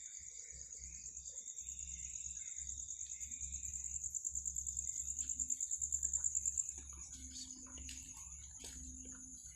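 Night insects, crickets, trilling in one continuous high-pitched pulsing trill that grows louder, then drops about seven seconds in. A low hum and scattered light clicks run underneath.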